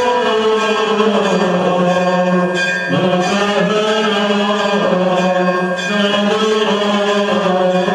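Malankara Catholic funeral chant: voices singing a slow liturgical hymn in long held notes that shift in pitch every second or two.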